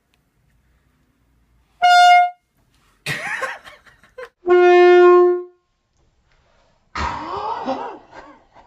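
Handheld canned air horn blasting twice: a short, higher blast about two seconds in, then a longer, lower blast about four and a half seconds in, the loudest sound. A person's voice cries out after each blast.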